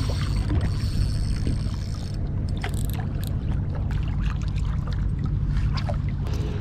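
Steady low rumble of wind and sea water washing against breakwater rocks, with scattered light clicks and taps as a small fish is reeled in and landed on the rocks.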